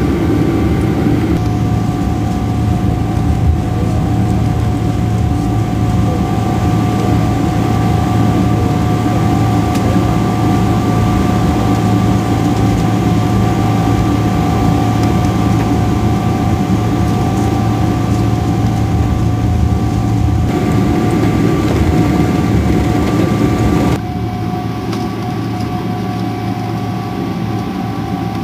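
Steady engine and cabin noise inside a Boeing 777 taxiing: a low hum with a steady high whine over it. The level drops abruptly about three-quarters of the way through.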